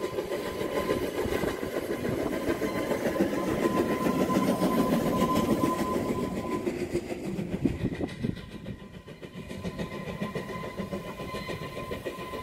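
Beyer Garratt narrow-gauge steam locomotive running, heard on the footplate: a steady mechanical din with the clatter of wheels on the rails. About eight seconds in the sound briefly drops and changes.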